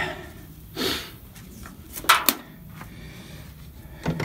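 Two sharp clicks close together about two seconds in, with softer rustling handling noise about a second in and near the end.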